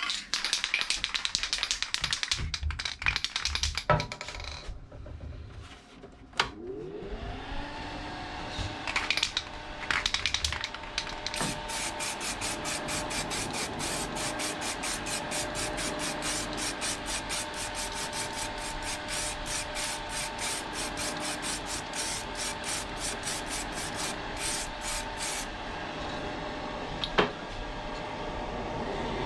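Aerosol can of clear acrylic lacquer rattling and hissing in short bursts as a light top coat is sprayed. About seven seconds in, a motor spins up and then runs steadily with a fast, regular ticking.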